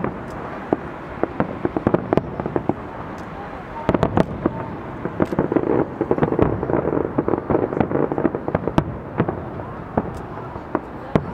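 Fireworks display: aerial shells bursting in a rapid, irregular run of bangs and crackles, thickest in a dense crackling stretch in the middle.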